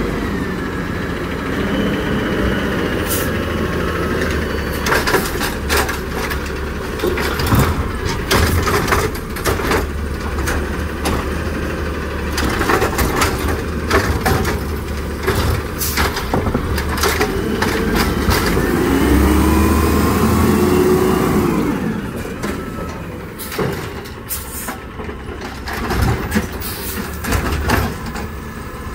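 Peterbilt 320 automated side-loader garbage truck with its natural-gas engine running as it works the curb, its side arm grabbing and dumping recycling carts with repeated clacks and bangs. A whine rises and falls about two-thirds of the way through, and air brakes hiss as the truck stops and moves on.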